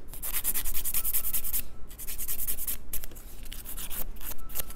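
Hand nail file filing the tip of a natural fingernail in rapid back-and-forth strokes, in short runs with brief pauses, shaping the nail to a pointed almond tip.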